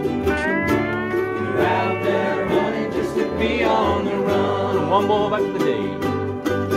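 A large group of ukuleles and an acoustic guitar strumming a country song together, with a pedal steel guitar sliding up into its notes in the first second or so and many voices singing along.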